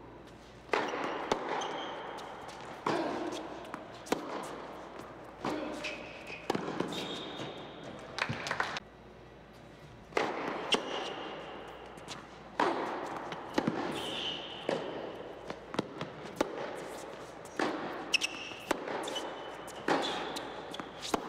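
Tennis rallies on an indoor hard court: sharp racket strikes and ball bounces, with short high squeaks from players' shoes on the court. The hall makes the strikes echo.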